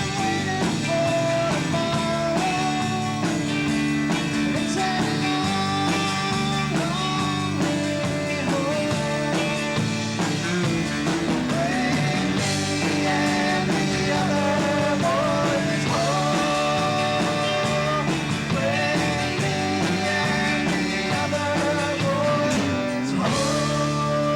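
A live band playing mid-song: held chords underneath and a lead melody line above that bends and slides in pitch.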